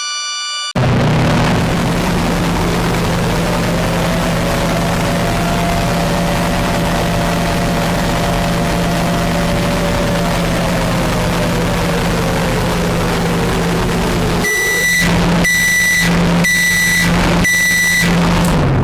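Warning siren winding up over a few seconds, holding a steady wail, then slowly winding down over a constant low hum. Near the end, four short high-pitched beeps sound at about one per second before it cuts off.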